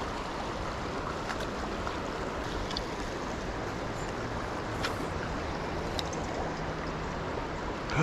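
Steady rushing of a shallow, rocky creek running over stones, with a few faint clicks.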